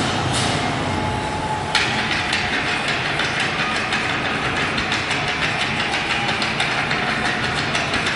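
Soundtrack of a stage dance show played back over speakers into a hall: quick rhythmic tapping and stamping of a dance troupe's feet over music, muffled and noisy. The tapping gets denser from about two seconds in.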